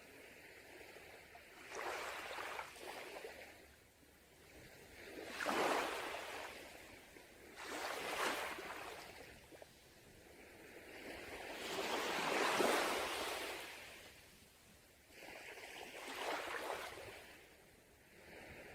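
Small sea waves breaking and washing on a beach, a hiss of surf that swells and fades again every few seconds, about five times.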